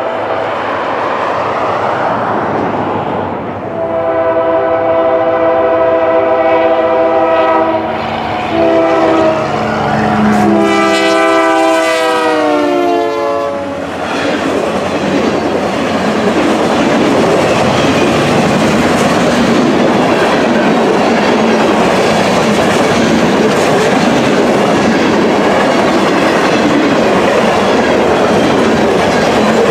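Union Pacific freight locomotive approaching and sounding its multi-note horn: one long blast, then two more, the chord dropping in pitch as the locomotive passes. After that comes the steady rumble and rush of freight cars rolling by.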